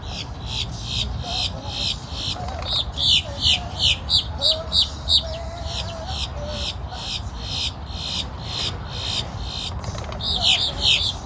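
Birds calling: a steady run of high chirps about three a second, with a louder series of quick downslurred notes about three seconds in and again near the end, over a low background rumble.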